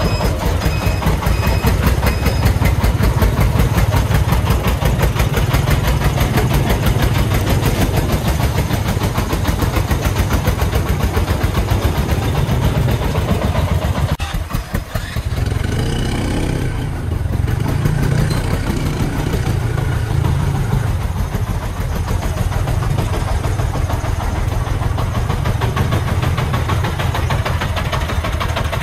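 Single-cylinder diesel engine of a homemade three-wheeled công nông truck, loaded with sand, running with a steady, rapid chugging as it crawls along. The engine eases off briefly about halfway through, then pulls again.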